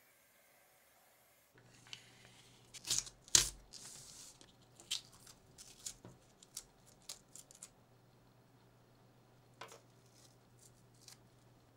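Masking tape being peeled off small plastic parts: short crackling rips and light plastic clicks, starting about a second and a half in, with the loudest rips a few seconds in and scattered smaller ones after.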